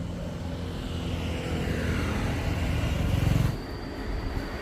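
A motor vehicle on the road, its engine and road noise building to a peak about three seconds in, then dropping off abruptly to a quieter, steadier sound.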